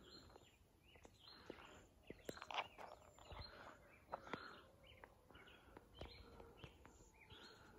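Faint footsteps on a dirt hiking trail, soft regular footfalls about once a second, with an occasional faint bird chirp in quiet outdoor air.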